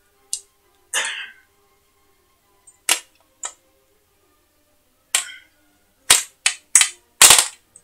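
Replica steel sword being handled and flexed against a hand: a series of about nine short, sharp clicks and knocks, the last four coming quickly together near the end.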